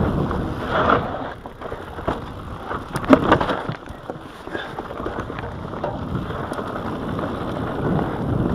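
Mountain bike riding down a dirt singletrack: tyres crunching over loose dirt and stones, with wind rushing over the camera microphone. The bike knocks sharply over a bump about three seconds in.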